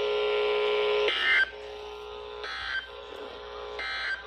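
Emergency Alert System end-of-message data bursts: three short, harsh digital screeches about a second and a half apart, sent after the spoken warning to close the alert, over a steady radio hum.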